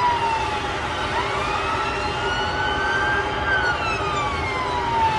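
Emergency-vehicle siren wailing in a slow rise and fall: the pitch sinks, climbs again for about two seconds from about a second in, then sinks again near the end. A steady rumble of city noise runs underneath.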